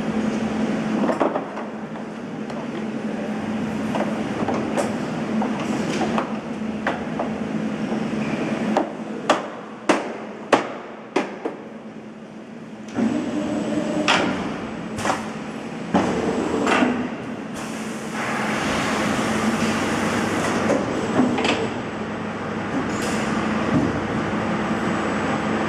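Hot plate plastic welding machine working: a steady hum, a run of sharp metallic clacks about half a second apart near the middle, a few more heavy knocks, then a few seconds of hissing.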